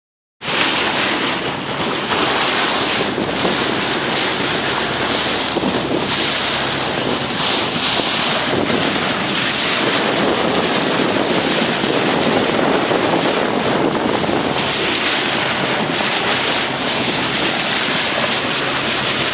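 Wind buffeting the microphone over the steady rush of water along the hull of a boat under way.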